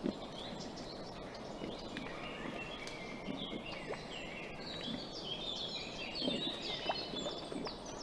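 Wild boar eating, with short, uneven chewing noises. Many birds chirp behind it, thickest in the middle.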